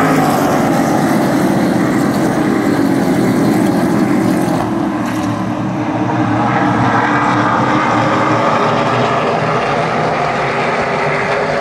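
A pack of SRX stock race cars running past at racing speed, their engines loud and continuous. The engine pitch falls as the pack goes by, then rises again as more cars come through.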